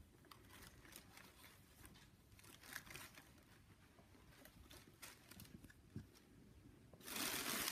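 Faint rustling and light scrapes as a cat noses around inside an empty cardboard box. About seven seconds in, loud crinkling of tissue paper suddenly starts.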